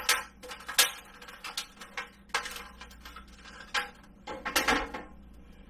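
Hard clear-plastic food dehydrator trays clacking together as they are stacked back into place, with about half a dozen sharp, irregular knocks.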